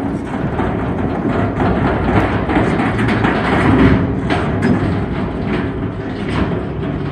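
Crawler tracks of an SRs 1800 bucket-wheel excavator travelling: a heavy continuous rumble with irregular clanks and knocks of the track pads, most frequent in the middle.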